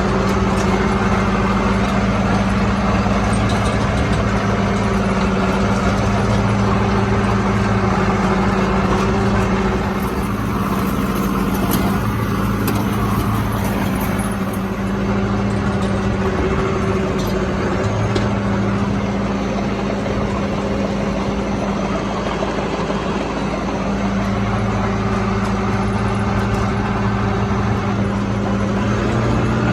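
Heavy diesel engine running steadily at a constant speed: a continuous low drone that eases a little in the middle and then comes back up.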